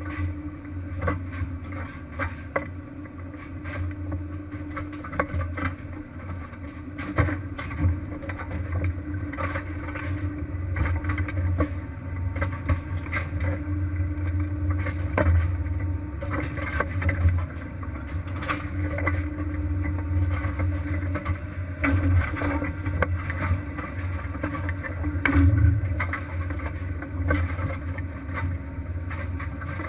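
Fishing vessel's engine running with a steady low drone, with frequent short knocks on board over it.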